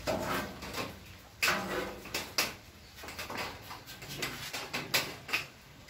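Irregular knocks and clicks, with a few faint voice-like sounds near the start and about a second and a half in.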